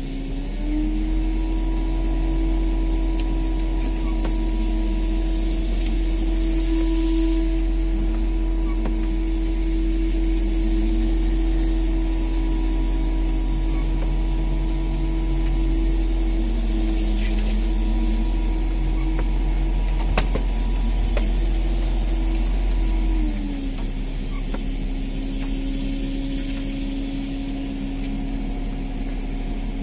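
Fishing boat's engine running steadily during longline hauling. Its pitch rises slightly about a second in and drops back about 23 seconds in, with a single sharp click about 20 seconds in.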